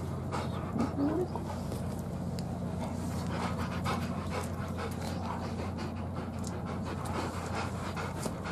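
Akita dog panting rapidly close to the microphone, with a short rising whimper about a second in.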